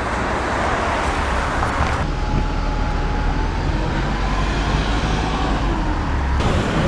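A natural gas bus's engine running close by, with a faint whine that rises slowly through the middle, over a steady low rumble of traffic noise.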